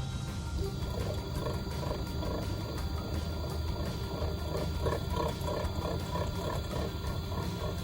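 Panasonic drum washing machine's drive motor running as the drum turns, with a loud roaring groan like a train and a repeating pulse. The noise is a sign of a faulty motor.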